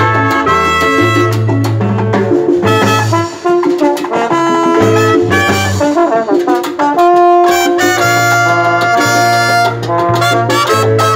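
Live salsa band playing an instrumental passage: a trumpet section carries the melody in held notes over electric bass and percussion.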